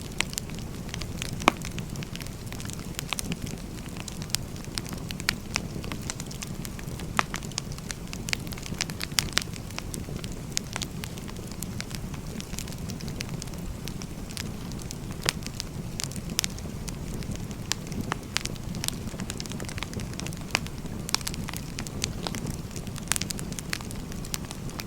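Firewood burning: a steady low rush with frequent, irregular sharp crackles and pops of the burning logs.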